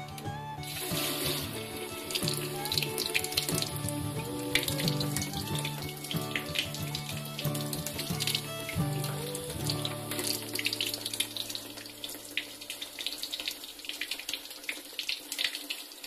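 Kitchen tap turned on about half a second in, with water running and splashing into a stainless-steel sink.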